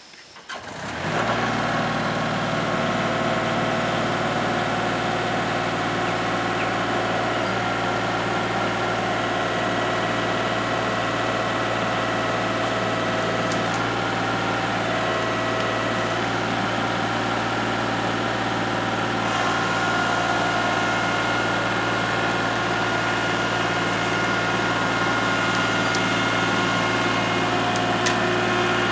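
Kubota L3301 HST tractor's three-cylinder diesel engine starting about a second in, then running steadily while the tractor backs up dragging a fallen tree on straps.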